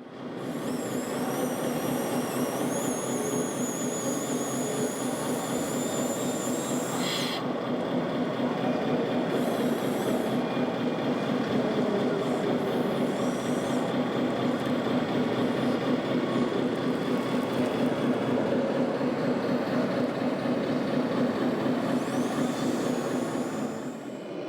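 1/14-scale RC construction models running: high electric-motor whines gliding up and down in the first seven seconds over a steady engine-like hum and continuous hall noise.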